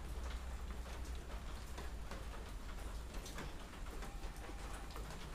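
Metal spoon clicking and scraping against a small metal camping pot during eating, light irregular clicks over a steady low hum.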